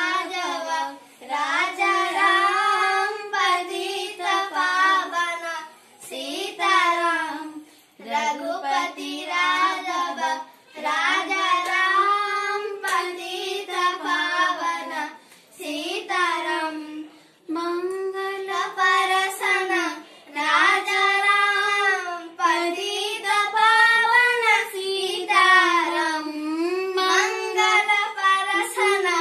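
A young boy singing solo without accompaniment, in short phrases with brief breaks for breath between them.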